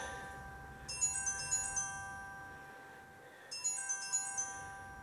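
A phone ringtone: a short chiming phrase of quick high notes over held ringing tones, sounding twice, about two and a half seconds apart, each phrase fading away before the next.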